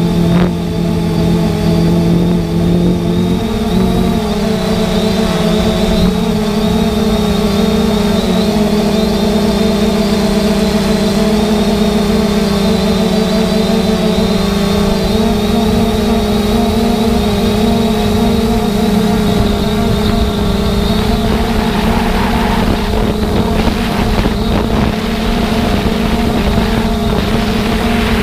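Multirotor drone's electric motors and propellers humming steadily, heard from the camera on board, with rough wind noise underneath; the pitch shifts slightly a few seconds in as the motors change speed.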